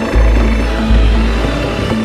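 Background music with a deep, pulsing bass note repeating about every three-quarters of a second.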